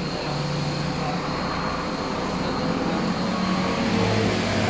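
A vehicle engine running steadily, a low hum under a steady hiss.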